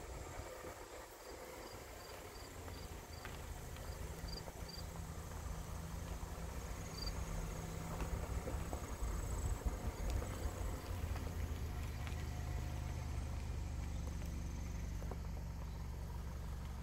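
Car engine and tyres rumbling low as the car rolls slowly along the road, getting a little louder after about four seconds. Insects chirp outside, with a quick series of short high chirps early on.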